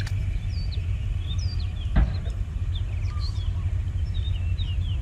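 Small birds chirping in short, quick calls over a steady low rumble, with one thump about two seconds in.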